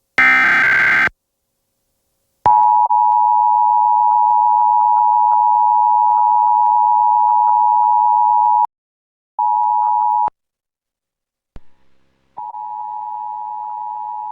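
Emergency Alert System attention signal: a steady, loud two-tone beep (853 and 960 Hz together) broadcast over TV audio, sounding in chopped segments. The longest runs about six seconds, a short piece follows, and after a click a quieter stretch starts near the end. It opens with a one-second harsh burst of noise.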